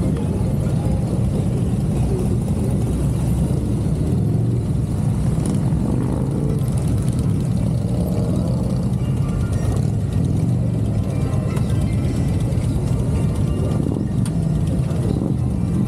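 Several motorcycle engines idling together in a steady low rumble.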